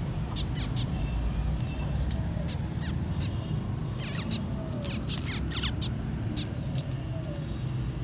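Small white finches chirping in a cage: many short, high, quickly falling chirps scattered irregularly. A steady low rumble runs underneath.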